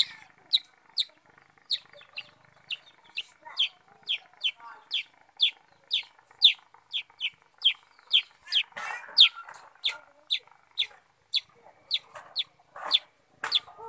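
Black-headed bulbul (kutilang sutra) calling a steady series of short, sharp, downward-slurred chips, about two a second. Fainter lower chatter runs behind, swelling about nine seconds in and again near the end.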